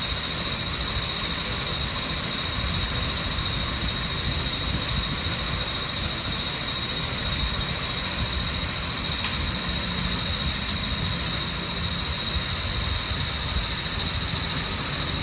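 Steady background noise with a constant high-pitched whine, and a faint click or two.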